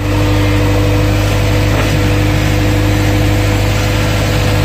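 JCB 3DX backhoe loader's diesel engine running steadily at an even speed, heard from inside the operator's cab, with a constant low hum.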